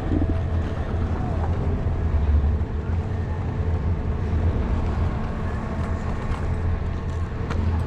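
Steady low wind rumble buffeting an action camera's microphone as a skier glides downhill, with the skis running over groomed snow.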